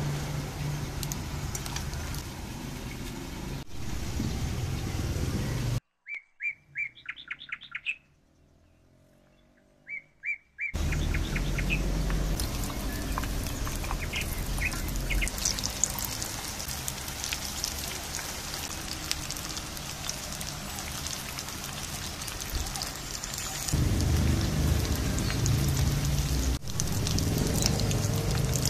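A spoon stirring shrimp fritter batter in a glass bowl, then a near-silent pause of a few seconds in which birds chirp. After that come shrimp fritters (cucur udang) deep-frying in a pan of hot oil with a steady sizzle, which grows louder near the end.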